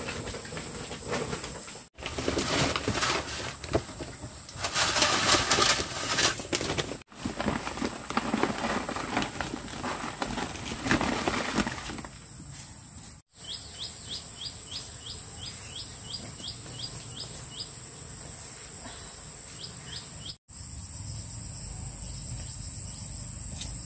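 Busy rustling and clattering handling noise for most of the first half, the loudest part. Then a bird repeats short rising chirps, about two a second, for several seconds over a steady high-pitched drone.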